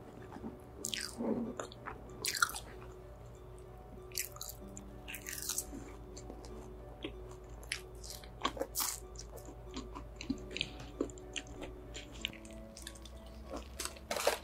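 Close-miked eating sounds: sharp crunches and bites, then wet chewing with crisp crackles, and near the end the crackle of crispy fried chicken skin being torn. Soft background music plays underneath.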